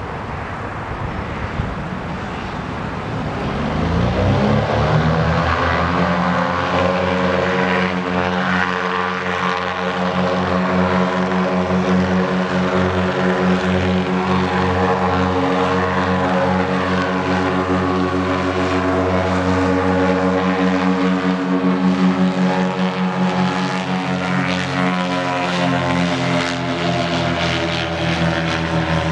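Goodyear Zeppelin NT airship's propeller engines running up to takeoff power, rising in pitch over the first few seconds, then holding a steady propeller drone as the airship climbs away.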